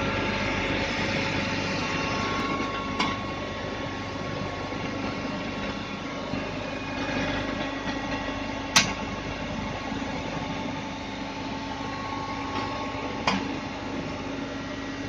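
Steady electrical machine hum with several steady tones, from a stress-relieving heat-treatment power console, broken by three sharp clicks about 3, 9 and 13 seconds in.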